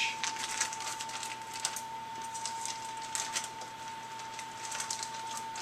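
Plastic zip-top marinade bag crinkling and rustling as it is handled, in irregular clusters of small crackles, over a steady high-pitched hum.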